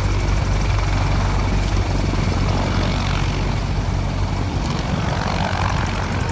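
Sikorsky H-53 heavy-lift helicopter's rotors and turbine engines running steadily at lift-off power, a loud, deep, unbroken drone as the rotor takes up the aircraft's weight.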